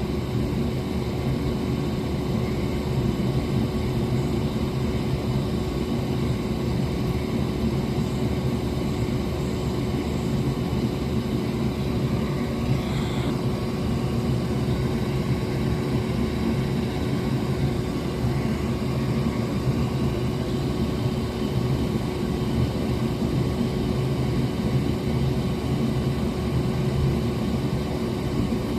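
A fan running with a steady whir and a low hum, with one constant tone above it.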